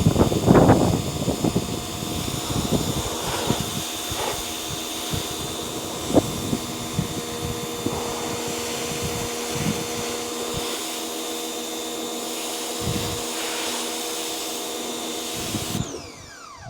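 Electric motor running with a steady whine, switched off near the end and winding down in pitch.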